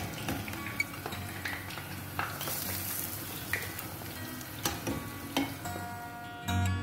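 Dough balls deep-frying in hot oil with a steady sizzle, and a few sharp clicks of a metal skimmer against the pan and bowl as the fried balls are moved into sugar syrup. Music comes in near the end.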